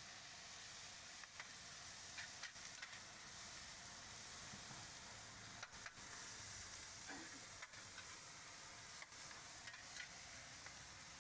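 Yellow noodles stir-frying in a large wok: a faint, steady sizzle, with a metal spatula clicking and scraping against the wok now and then.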